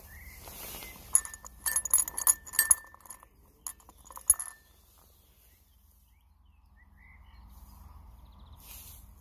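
A quick run of sharp clicks and light clinks with a brief ring as the T4E HDS 68 shotgun is handled with its barrels tipped open, lasting a few seconds and stopping about halfway through.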